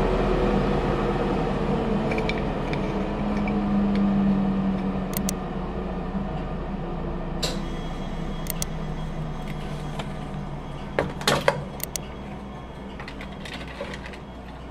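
A workshop machine spinning down after being switched off, its hum falling in pitch and fading away. A few sharp clicks and knocks of wooden workpieces being handled come in the second half.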